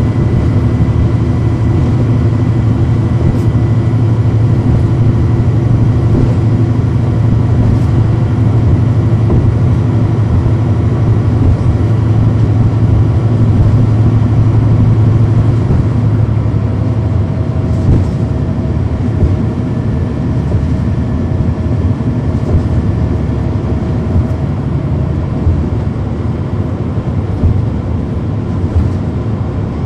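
Cummins ISL9 inline-six diesel of a 2010 NABI 40-foot suburban transit bus heard from inside the passenger cabin, running under load with a steady deep drone. About halfway through the drone eases slightly and a faint whine comes in for several seconds.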